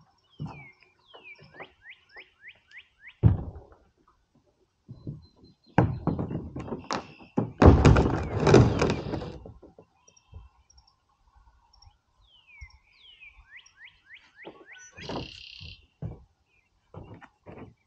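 Fishing kayak being handled at a truck after being slid off the roof rack: scattered knocks and thuds, one hard thud about three seconds in, and a longer scraping stretch in the middle that is the loudest part. A run of quick descending chirps is heard twice.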